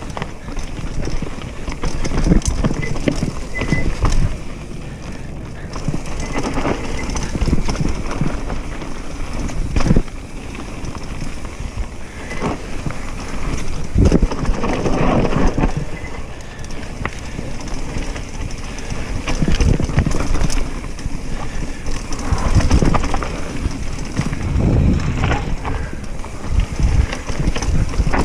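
Chromoly steel hardtail mountain bike ridden fast down a rocky dirt trail: tyres rolling and scrabbling over dirt and stones, with frequent irregular knocks and rattles from the chain and unsuspended rear end hitting roots and rocks.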